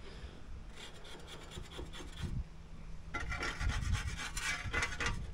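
Skim-coated fibre-cement board wall being rubbed down by hand: a scratchy, rasping rub that comes in strokes and grows louder and busier from about three seconds in.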